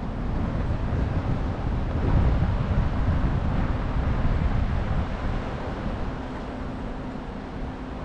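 Wind buffeting the microphone over a low outdoor city rumble. It swells about two seconds in, and a steady low hum joins about halfway through.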